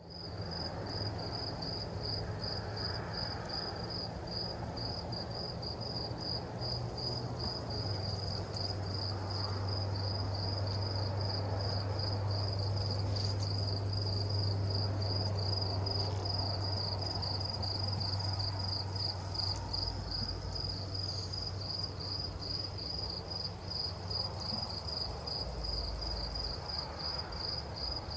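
A night-time insect chirps steadily in an even run of short, high-pitched pulses, several a second. A low steady hum runs underneath.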